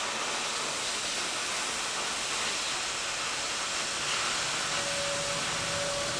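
Oxyacetylene cutting torch hissing steadily as its oxygen jet cuts through half-inch steel plate, with the tip held well back from the work. A steady high tone joins about five seconds in.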